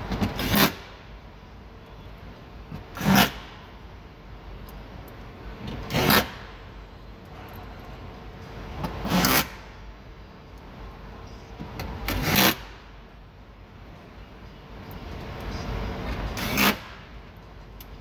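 Cordless DeWalt impact driver run in six short bursts, about three seconds apart, driving bolts into a car door's inner steel frame.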